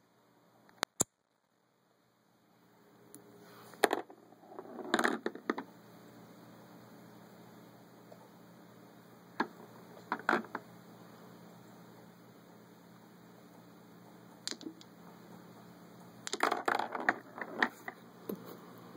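Balls on a tabletop mini pool table clacking against each other and the rails as a cat paws them, with some dropping into the pockets. The knocks come in about six short clusters, the busiest near the start and toward the end.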